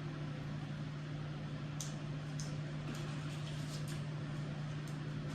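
A few faint, short wet clicks of someone chewing a bite of fried chicken sandwich, over a steady low electrical hum.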